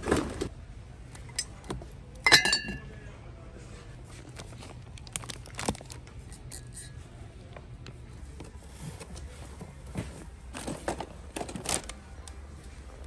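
Kitchen handling noises: a sharp clink that rings briefly about two seconds in, then scattered taps, clicks and rustles of packaging, with a cluster of knocks near the end.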